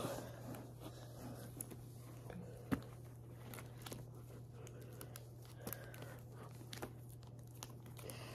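Faint handling noise of plastic WWE action figures being moved by hand: soft rustles and scattered small clicks, with one sharper click about three seconds in, over a low steady hum.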